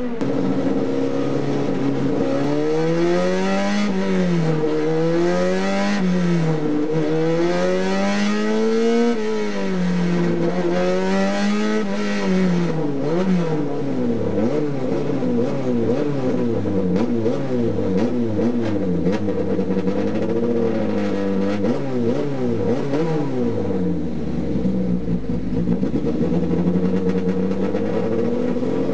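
TC 850 race car's engine heard from inside the cockpit, revving up through the gears with the pitch climbing and then dropping at each shift every couple of seconds. From about 13 seconds in it runs at speed, its pitch rising and falling more quickly.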